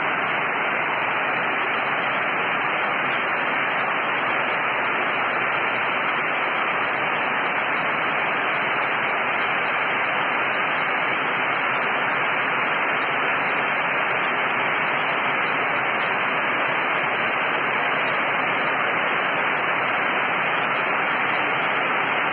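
Heavy rain falling steadily: an even, unchanging hiss.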